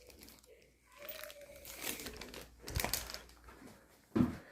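Crinkling and rustling of a toilet's hardware packaging as it is handled and opened, in uneven spurts with a couple of light handling knocks.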